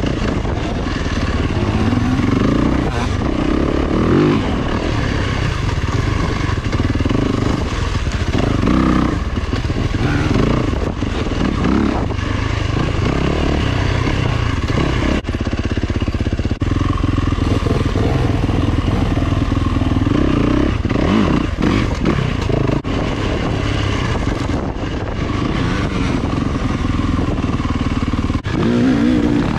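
Dirt bike engine revving up and down as it is ridden along a rough woodland single-track trail, with the pitch rising and falling every second or two and a few sharp knocks from the bike over the ground.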